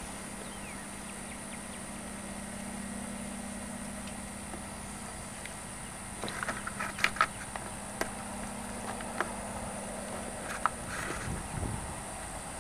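Footsteps crunching through dry grass and brush, with scattered sharp crackles from about six seconds in, over a steady low hum.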